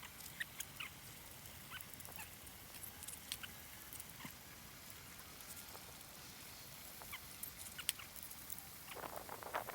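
Quiet cooking at a camp stove: faint scattered clicks and light clinks, then about nine seconds in a louder sizzle starts up.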